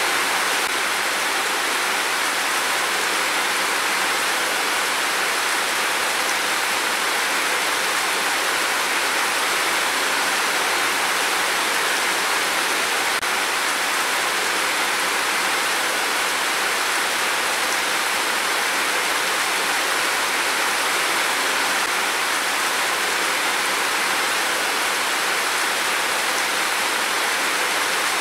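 Heavy rain pouring down steadily, an even hiss with no thunder.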